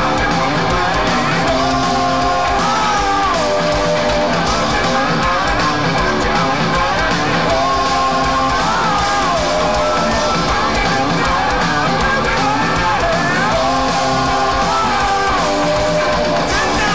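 Hard rock band playing live at full volume: electric guitar and drums, with a sung melody line weaving over them.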